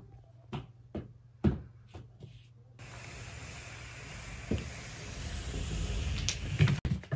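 Two cats play-fighting on a foam-mat floor: several soft knocks and taps of paws and bodies. After about three seconds a steady hiss sets in and builds up, with a knock and a few clicks, before it cuts off suddenly near the end.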